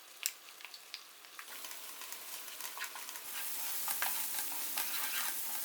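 Ground spice masala frying in hot oil with fried onions in a pot, a sizzle that starts about a second and a half in and grows louder. A few light clicks are heard near the start.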